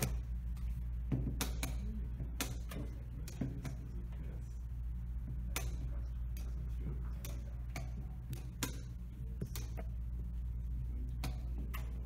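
Irregular sharp clicks and taps of plastic chess pieces being set down and a digital chess clock's button being pressed, over a steady low hum.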